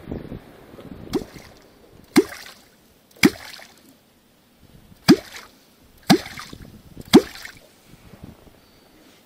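Wooden catfish clonk (kvok) struck into the water six times, each stroke a deep hollow plop, with a longer pause after the third. Clonking like this is done to call wels catfish up to the bait.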